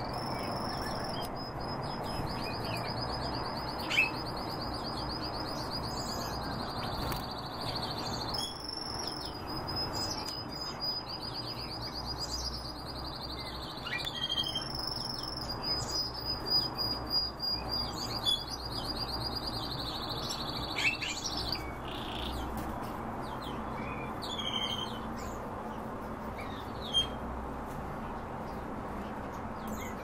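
Caged songbirds: one bird sings a long, high, rapid trill held at a steady pitch for about twenty seconds, with a couple of brief breaks, while short chirps come from the others.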